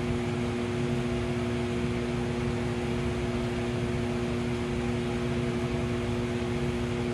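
Steady mechanical hum with an even airy rush, like a fan or air conditioner running, carrying two constant humming tones.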